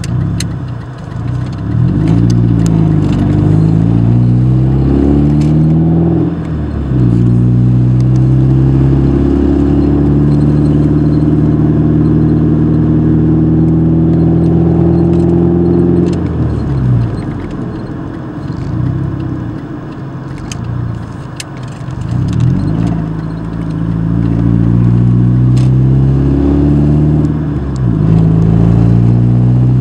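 Car engine heard from inside the cabin, pulling up through the gears with rising pitch that drops back at each shift, then running at a steady pitch. Just past the middle it eases off, and in the last third it picks up through the gears again, with occasional light rattles.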